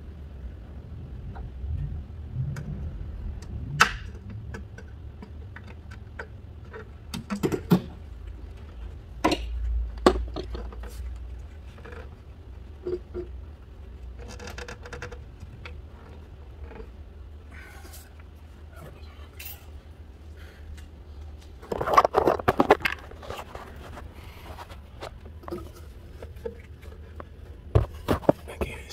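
Hands working behind a plastic intake plenum, struggling to reach and free a hose: scattered clicks, scrapes and small knocks over a steady low hum. There is a louder cluster of knocks about twenty-two seconds in and more near the end.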